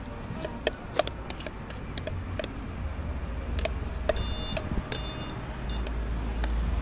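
Scattered sharp clicks and taps of a spoon on a plastic tub and paper cup as sweet corn is mixed and scraped into a cup, over a steady low hum. A short high beep sounds about four seconds in.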